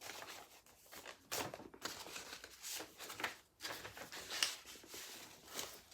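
Soft rustling and light handling clicks of paper and card being moved about.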